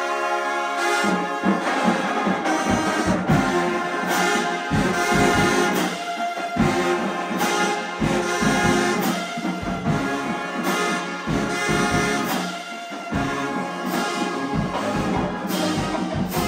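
Marching band brass section of trumpets, trombones and sousaphones playing loud at close range in a band room. A held chord opens, and about a second in the full band comes in with a driving beat of sharp accented hits.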